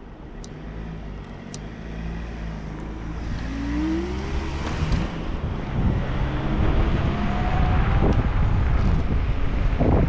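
Night road traffic heard from a moving electric scooter: a steady vehicle engine hum with a couple of rising whines, and road and wind noise growing steadily louder.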